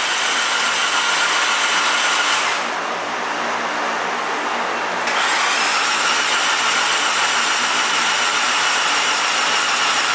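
Mazda FD RX-7's 13B twin-rotor engine cranking over on its starter without catching, a steady whine that fades briefly about halfway and picks up again; the car has a no-start condition.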